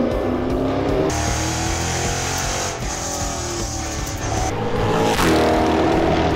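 Race car engine revving up through the gears, its pitch climbing and dropping back at each shift, with a car passing close by about five seconds in. Background music plays underneath.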